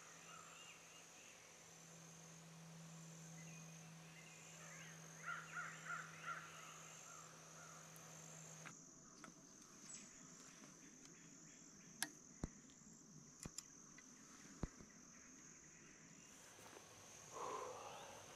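Near silence: faint woodland ambience with a steady high insect trill, a short run of bird calls about five seconds in, and a few sharp clicks in the second half.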